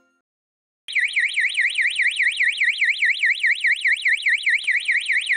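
Electronic alarm siren of an infrared-camera alarm indicator, warbling rapidly up and down at about five sweeps a second, starting about a second in. It is the indicator's acoustic signal that a set temperature has been exceeded.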